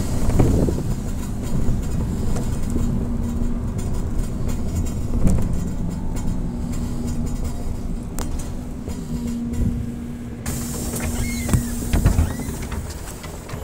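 Interior ride noise of a BKM 321 trolleybus under way: road rumble and rattles with a steady low electric hum from the traction drive. Near the end it slows for a stop, with a couple of knocks, and the sound grows quieter.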